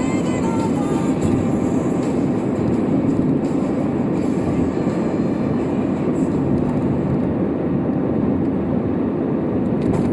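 Steady road and engine rumble heard from inside a moving car's cabin at highway speed.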